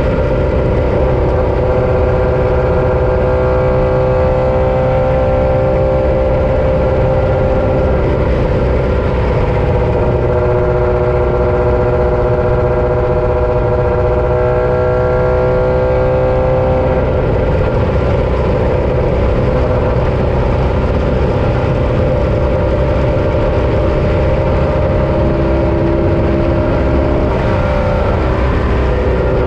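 Off-road race vehicle's engine running hard at a fairly steady pitch over a loud low rumble. The pitch drifts slowly, easing off about halfway through and shifting again near the end.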